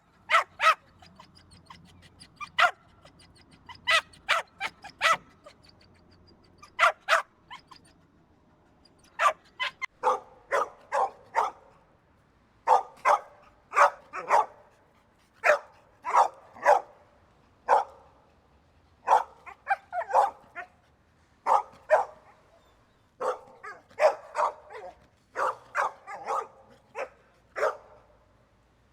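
A dog barking in short sharp barks, singly or in quick runs of two to four, with pauses between. About ten seconds in the barks become fuller and deeper.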